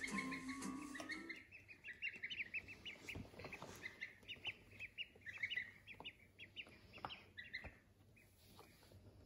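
Slideshow music fades out in the first second and a half, then ducklings and a gosling peep: runs of quick, high peeps, each rising slightly, with a few soft taps among them.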